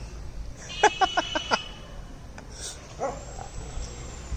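Dog barking: a rapid run of five barks about a second in, then one more short call near three seconds.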